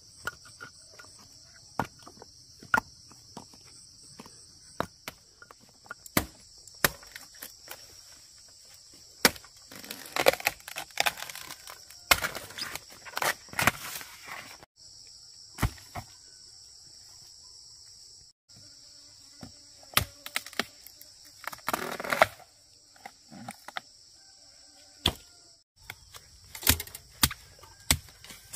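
Steady high-pitched chorus of crickets, broken off abruptly a few times, over scattered sharp clicks and knocks of stones being set by hand at first, then bursts of rustling and crunching in dry bamboo litter.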